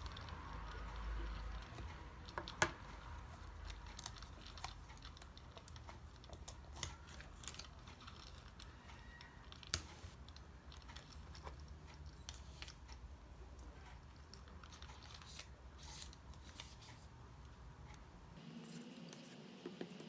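Faint scattered small clicks and taps over a low hum, with two sharper clicks about two and a half and ten seconds in; the hum cuts off near the end.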